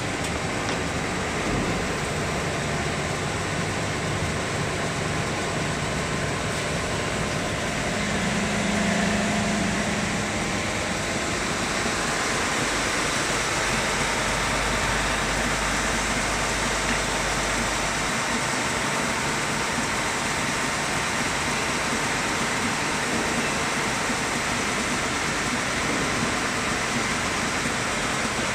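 MTWBS1300R-R two-head wide belt sander running steadily while a veneer-laminated board passes through it for a test sanding pass, an even rushing machine noise. It grows slightly louder with a low hum around eight to ten seconds in.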